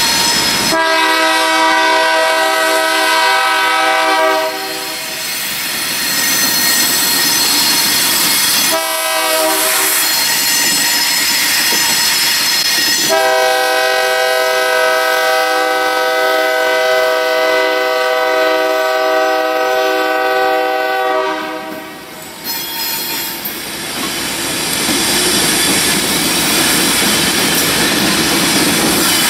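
BNSF diesel freight locomotive's multi-chime air horn sounding as the train approaches: a blast of about three seconds starting about a second in, a short blast, then a long blast held about eight seconds. After that the locomotives pass close by with loud engine and wheel noise.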